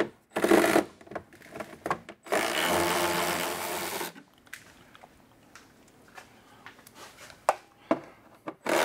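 A cordless power tool spinning out heat-shield bolts under a car: a short burst about half a second in, then a steady whirring run of about two seconds. Light clicks and taps of metal come in between.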